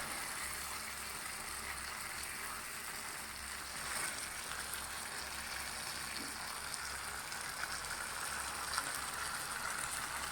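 Squid cooking in balado chili sauce in a pan, sizzling steadily, with a low steady hum underneath.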